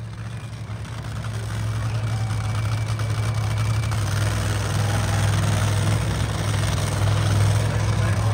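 Engine idling with a steady low drone that swells over the first couple of seconds and then holds.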